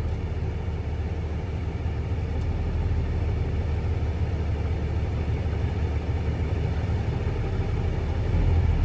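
Hino L6 truck's diesel engine running steadily near idle, heard from inside the cab, while its air compressor builds pressure in the brake tanks toward governor cut-out. The sound grows a little louder near the end.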